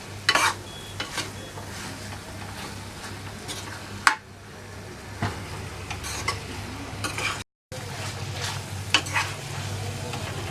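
Chicken pieces in red chilli paste sizzling in a hot pan as they are stir-fried, with the stirring utensil knocking and scraping against the pan every second or so. The sound cuts out for a moment about three-quarters of the way through.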